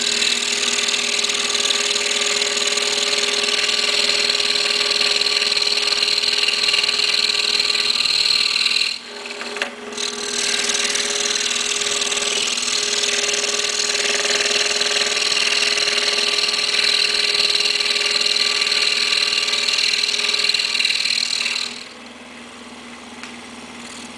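Excalibur scroll saw running and cutting through a thin wooden blank: a steady motor hum under the rapid up-and-down sawing of the blade. The sound dips briefly about nine seconds in, and near the end the cutting noise stops, leaving a quieter hum.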